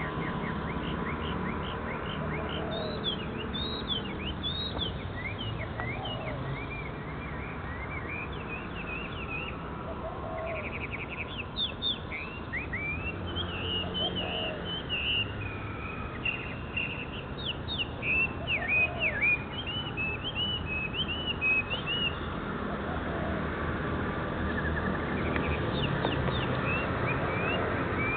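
Small birds chirping and twittering, many short rising and falling calls in quick runs, over a steady background hiss.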